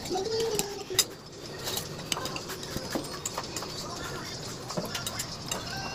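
Cutlery clinking and tapping on plates during a meal, in scattered light clicks. A voice is heard briefly in the first second.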